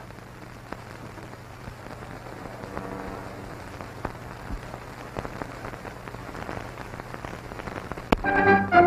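Steady hiss and scattered crackle of an old film soundtrack. About eight seconds in, a sharp click comes and orchestral music starts.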